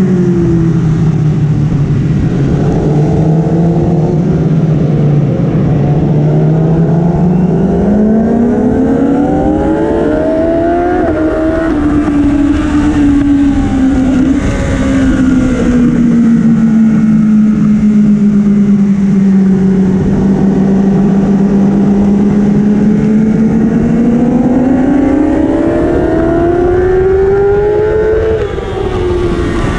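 Kawasaki superbike's engine under race throttle, heard from the bike's own mount. Its note sinks low at first, climbs hard to a peak about ten seconds in, holds fairly level through the middle, then climbs again and falls off near the end.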